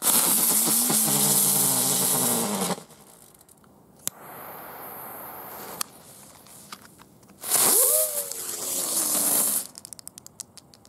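Nico 'Speedy' ground spinner firework spinning: a loud hissing rush with a wavering whistle that cuts off after about two and a half seconds. After a click and a quieter hiss, a second loud hiss follows with a whistle that rises and then falls, lasting about two seconds and ending in scattered ticks.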